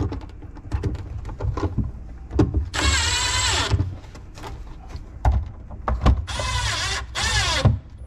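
Milwaukee cordless screw gun driving screws to fasten an electrical outlet box into sheetrock: the motor whines for about a second roughly three seconds in, then again in two short runs near the end, its pitch dropping at the end of each run. Light clicks and knocks of handling between the runs.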